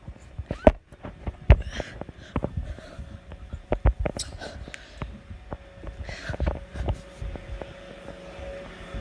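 Irregular footsteps and knocks from someone moving through a house, several thumps a second, with a few short breathy rustles.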